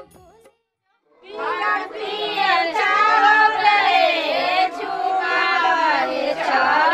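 A group of female voices singing together without instruments, several voices overlapping; the singing starts about a second in after a short gap.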